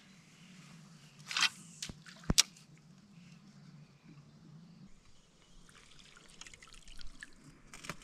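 Light water dripping and trickling, with a short swish about one and a half seconds in and a sharp click a second later.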